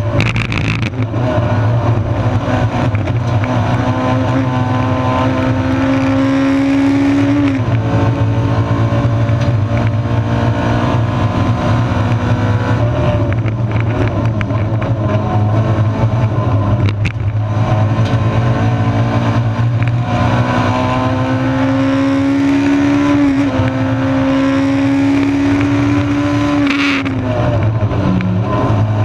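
Honda 1600 four-cylinder race car engine at racing pace, heard inside the stripped cockpit. Its note climbs and then drops sharply at a gear change, twice, over a steady low drone.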